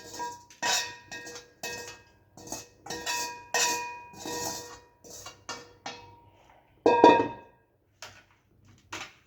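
A utensil scraping and knocking against a metal wok while the cooked chicken is scooped out of it, in about a dozen irregular strokes with a short metallic ring. The loudest scrape comes about seven seconds in.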